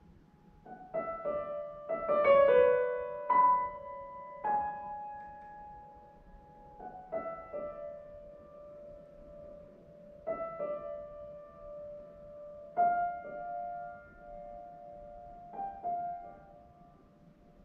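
Solo concert grand piano playing a slow, sparse passage of single notes and short chords, each left to ring, with gaps between phrases; the last notes die away near the end.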